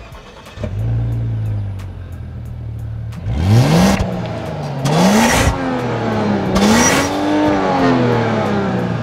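Volvo XC60 T6's turbocharged 3.0-litre six-cylinder engine heard at the exhaust tip. It idles steadily, then about three seconds in it is revved in quick blips, pitch rising and falling three times with the third rev held longer, and another rev starting at the very end.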